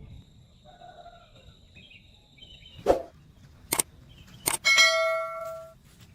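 Three sharp knocks, then a metal object struck with a clang that rings for about a second before fading. Faint bird chirps sound before the knocks.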